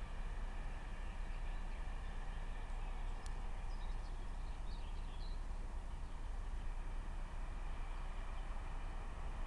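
Steady low rumble and hiss of outdoor background noise, with a few faint bird chirps about four to five seconds in.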